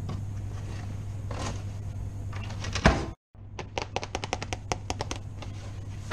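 Red leather welding gloves handled on a brazing hearth: a loud knock about halfway through, then a quick run of light sharp clicks, about six a second, over a steady low hum.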